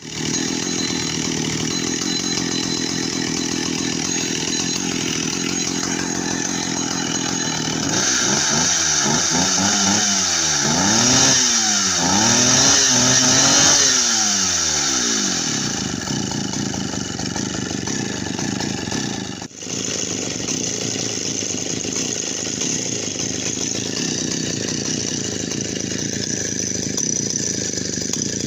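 Stihl two-stroke chainsaw engine running steadily, revved up and back down several times in quick succession for several seconds in the middle, then settling back to a steady run. There is a brief drop in sound about two-thirds of the way through.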